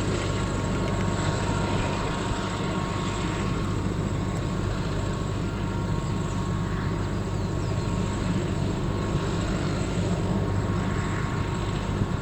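Aircraft engines running steadily: a low rumble with a steady high whine, not rising or falling.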